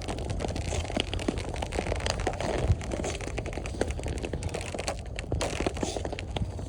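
Ice skates on thin canal ice about 3 cm thick, with a dense run of sharp cracks and crackles as the ice creaks under the skater's weight, over a low steady rumble.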